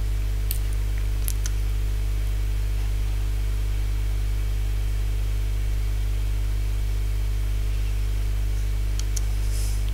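Steady electrical hum with hiss: the recording's mains hum and microphone noise floor, with no speech. A few faint clicks come about half a second and a second in, and again near the end.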